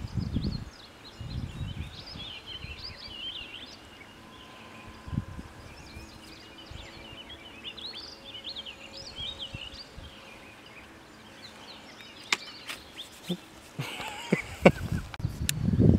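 Songbirds singing: many short, quick chirps and warbles over a low outdoor background. Near the end come a few sharp clicks and a louder noisy stretch.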